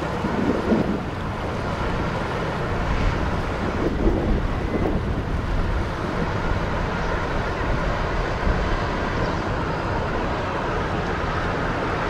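Offshore survey tug's engines running as it moves slowly past at close range: a steady low drone, mixed with wind noise on the microphone.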